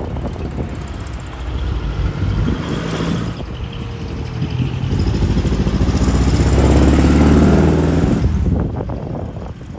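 Engine of a decorated small dump truck pulling away and driving close past. It grows louder to a peak about seven seconds in, then fades.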